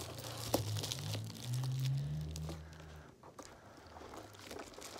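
Scissors cutting into cardboard packaging, with crunching and crinkling and a few sharp snips. A low hum runs for about a second and a half in the middle.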